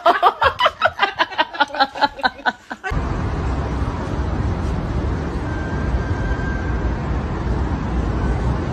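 A woman laughing hard in quick, even bursts, cut off about three seconds in. Then a steady low rumble of urban background noise.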